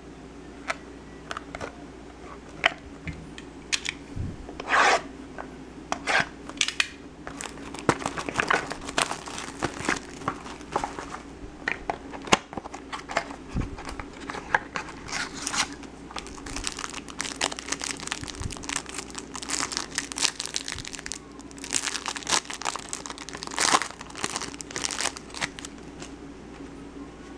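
Plastic shrink-wrap crinkling and tearing as a sealed trading-card box is unwrapped and torn open, with irregular crackles and rips throughout, and cards handled near the end.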